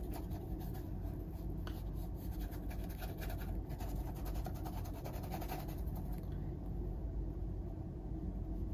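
A paintbrush scrubbing acrylic paint across a small canvas in quick repeated strokes, dying away about six seconds in, over a steady low hum.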